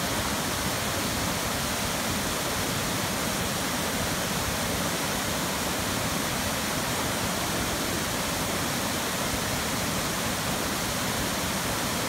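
Waterfall cascading over rock into a shallow pool: a steady rush of falling and splashing water.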